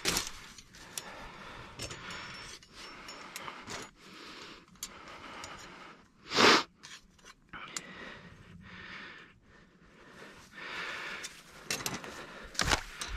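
Steel body-grip trap and its chain clinking and rattling as they are handled and carried, with dry grass rustling underfoot. One short, louder rush of noise comes about halfway through.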